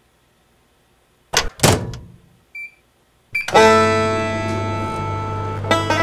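Two heavy thuds of a microwave oven door being shut, then a single short keypad beep. A strummed guitar chord then rings out, and banjo picking starts near the end.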